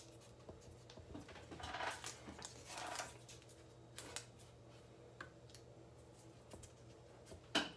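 Painter's tape handled at a workbench: two short rasps of tape being pulled off the roll and torn, then a few light taps as it is pressed down onto the track.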